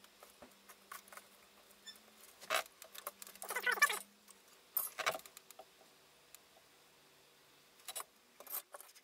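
Hand tools and small parts handled on a wooden workbench: scattered clicks and taps, with a short metallic clatter about three and a half seconds in as pliers and parts are picked up and set down.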